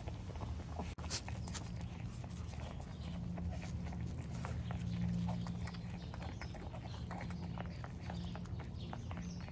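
Shih Tzu puppies nursing from their mother: many quick, irregular suckling and smacking clicks, mixed with paws scuffling on concrete, over a steady low hum.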